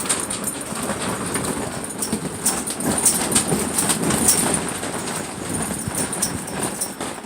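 Gusty wind buffeting the microphone, swelling about three seconds in, with irregular knocks and rattles scattered through it.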